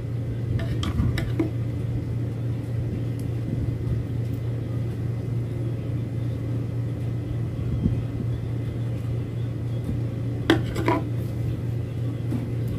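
Steady low hum throughout, with light rustling of plastic cord strands being pulled apart and handled by hand, and two short, sharper crackles about ten and a half seconds in.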